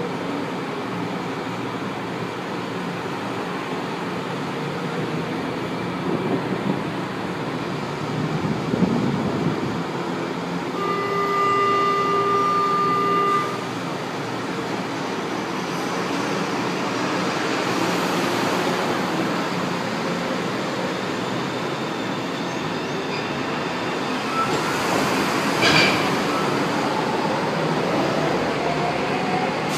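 São Paulo Metro Line 1 trains in an underground-style station, with a steady rumble and platform hubbub. About a third of the way in, a steady electronic door-warning tone sounds for two or three seconds and cuts off sharply. Later a train runs through the station, with a sharp metallic clatter a few seconds before the end as a train pulls in.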